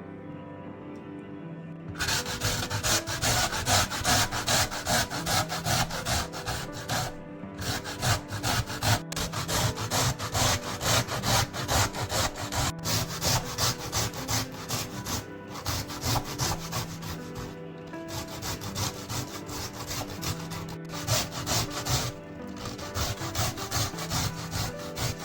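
Cauliflower being grated on a metal hand grater: rhythmic rasping strokes, about two a second, starting a couple of seconds in with a few brief pauses. Soft background music runs underneath.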